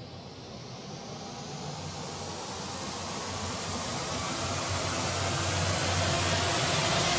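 A vehicle approaching: a noisy rush that builds steadily louder and brighter over several seconds.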